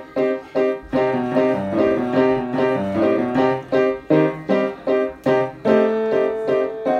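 A child playing a Yamaha upright piano: short repeated chords, about three a second, with a lower melody of held notes moving beneath them from about a second in.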